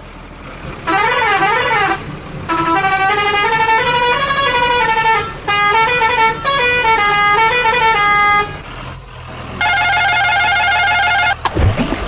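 A loud electronic horn sounding a short tune in stepped notes, then a harsher, buzzier horn blast about ten seconds in.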